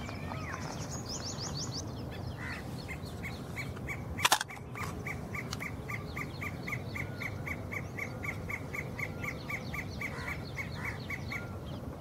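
Sirkeer malkoha calling: a long, even series of short sharp notes, about three or four a second. Near the start there is a quick run of high thin chirps, and about four seconds in a single loud click, the loudest sound.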